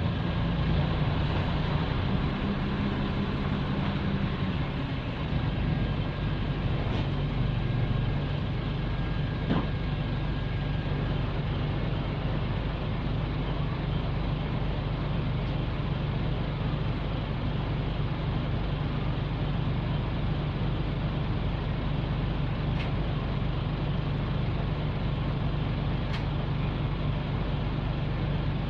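Nissan Diesel K-U31L city bus heard from inside the cabin: its PE6H straight-six diesel engine drives the bus away and runs on steadily at road speed, with a strong low drone. A faint thin whine is heard from about 6 to 11 seconds in.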